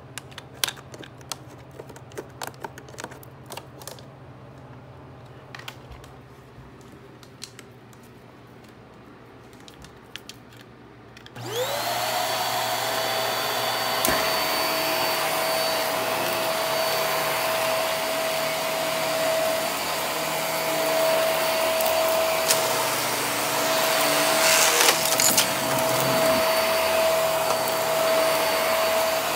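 Light scattered clicks and handling sounds, then, a little over a third of the way in, a stick vacuum cleaner's motor spins up with a rising whine and runs steadily with a high-pitched tone. Near the end come a few sharp rattles as it picks up debris from the carpet.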